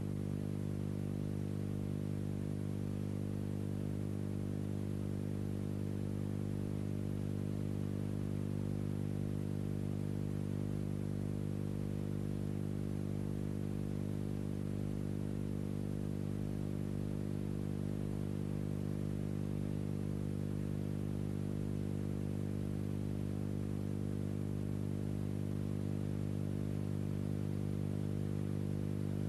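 Steady low buzzing hum with faint hiss over it, unchanging throughout: the hum and noise of an old film soundtrack rather than any sound from the pictures.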